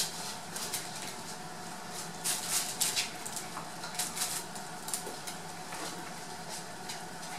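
Miniature poodle puppies scampering and scuffling on a wooden floor: irregular light patter and scratching of paws and claws, with rustles from a fabric play tunnel as a puppy pushes into it. The busiest stretch falls between about two and five seconds in.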